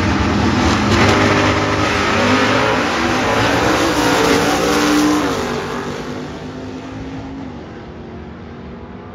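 Drag-racing car engine at full throttle accelerating down the strip, its pitch climbing and dropping back a few times. About five seconds in the sound begins to fade as the car pulls away.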